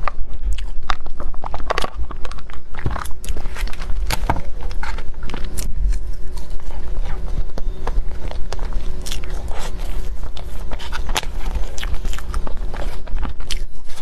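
Close-miked chewing and wet mouth smacks of someone eating soft mille-crêpe cake, a dense run of small clicks, over a steady low hum.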